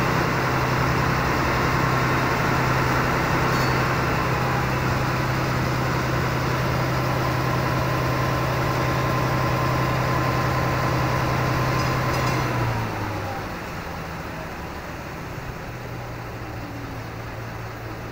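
Boat engine running steadily with a deep hum, then throttled back about thirteen seconds in, dropping to a quieter idle as the boat comes in toward a landing stage.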